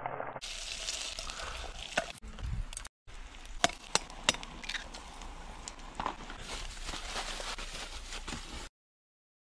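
Sausage slices and eggs sizzling in a small camping pan, with a steady hiss and a few sharp clicks as eggs are cracked and dropped in. The sound cuts off about a second before the end.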